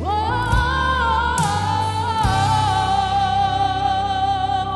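A woman singing one long, high held note with vibrato, which steps slightly lower about two seconds in, over gospel band accompaniment with bass and a few drum or cymbal hits.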